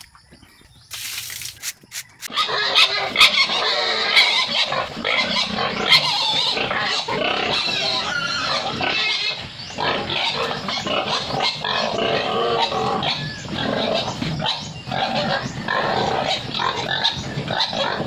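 A pen of seven-week-old pigs calling noisily all together as feed is poured into their trough: the excitement of feeding time. It starts about two seconds in, after a few quieter knocks.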